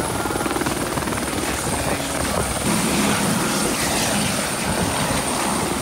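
Airbus AS350 B3 single-turbine helicopter at lift-off power, hovering and moving off close by: a loud, steady, fast rotor beat with a thin high turbine whine over it.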